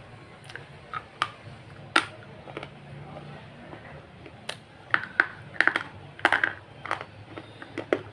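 Eating sounds: a spoon clicking against the mouth and dish, with mouth smacks while chewing. The clicks come irregularly and bunch together about five to six and a half seconds in.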